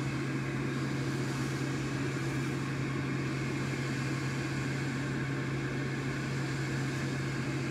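Steady machine hum with a low drone and an even airy hiss: a fan or blower motor running without change.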